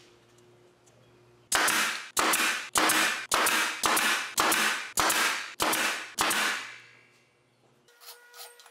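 Pneumatic brad nailer firing nine times in quick succession, about one shot every half-second, each a sharp crack with a short fading tail, nailing thin wood strips to a plywood top.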